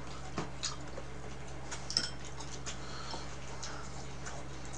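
Scattered light clicks and taps of eating at a table, chopsticks against bowls and plastic containers, the sharpest about two seconds in, over a steady low hum.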